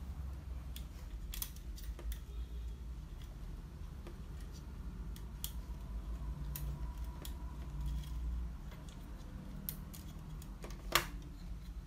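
Scattered small clicks and scrapes of hands working the plastic clips and wiring of an HP LaserJet 5200 fuser assembly, with one sharper snap near the end as a part springs loose, over a steady low hum.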